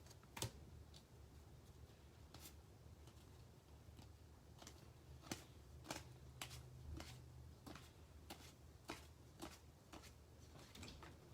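Trading cards being handled and sorted on a table: a scattered series of soft ticks and taps, a dozen or so over several seconds, over a faint low hum.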